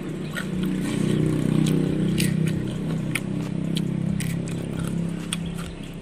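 A motor vehicle's engine running as it passes on the road, a steady low hum that swells and then fades. Crisp clicks from a raw chili being bitten and chewed are heard over it.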